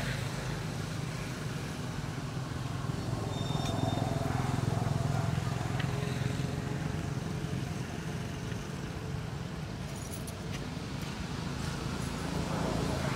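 Steady low rumble of road traffic, swelling slightly about four to five seconds in, with a brief high chirp about three and a half seconds in.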